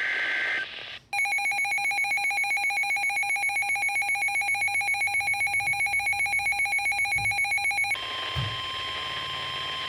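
Emergency alert tones. A two-pitch data burst ends about half a second in. Then a loud electronic ringing buzz pulses about seven or eight times a second for nearly seven seconds. From about 8 seconds in, a steady single tone follows: the 1050 Hz weather-radio warning alarm.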